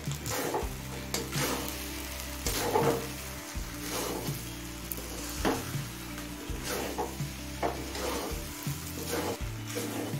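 Spatula scraping and turning pulao rice in a metal kadai, with a scrape about once a second over a steady sizzle as the prawns are mixed into the rice.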